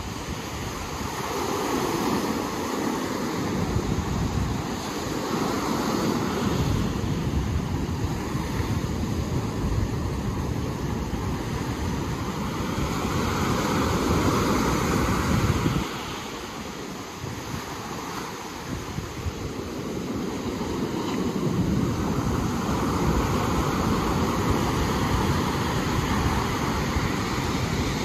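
Ocean surf washing ashore, swelling and falling every few seconds, with a sharp drop about halfway through. Wind rumbles on the microphone.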